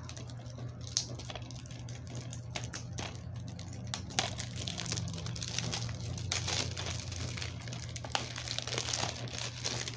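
Clear plastic shrink wrap crinkling and crackling as it is picked at and peeled off a DVD case, with irregular small clicks and snaps, the sharpest about a second in and about four seconds in.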